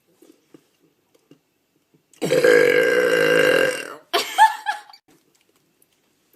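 A woman's loud, long burp lasting about two seconds, beginning a couple of seconds in. It is followed at once by a brief, higher-pitched vocal sound.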